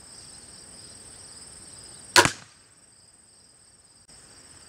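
A crossbow bolt tipped with a two-blade broadhead strikes a leather-covered carbon fiber shield panel: one sharp impact about two seconds in. High insect chirring runs underneath.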